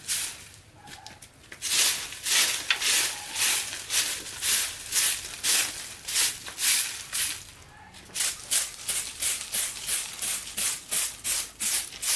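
Long-handled grass broom sweeping dry leaves and debris across bare dirt: a run of brushing strokes, about two a second, starting after a short pause and breaking off briefly about two-thirds through before going on a little quicker.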